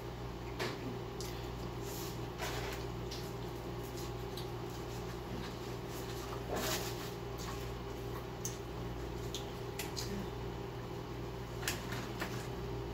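Soft, scattered rustles and clicks of paper fast-food packaging being handled, with quiet eating, over a steady room hum.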